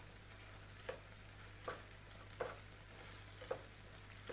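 A spatula stirring chunks of butternut squash curry in a white ceramic-coated frying pan: four short scraping knocks against the pan, about a second apart, over a faint steady hiss.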